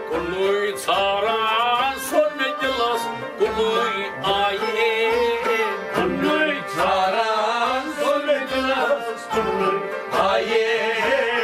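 Kashmiri Sufi song: a man singing in long, ornamented phrases, accompanied by a plucked string instrument. A hand-struck clay pot drum keeps a steady beat under them.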